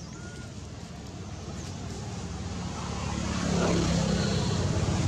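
Low engine rumble that grows steadily louder through the first three seconds or so and then holds.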